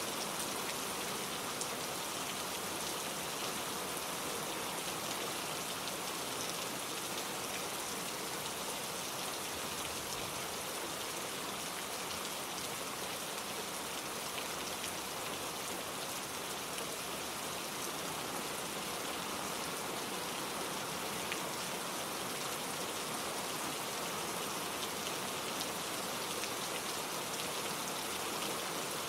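Steady rain falling, an even hiss of drops with a few individual drop ticks standing out now and then.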